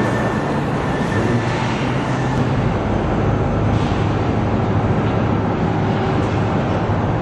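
Steady machinery noise on a car transmission assembly line: a dense, even rumble with a low hum.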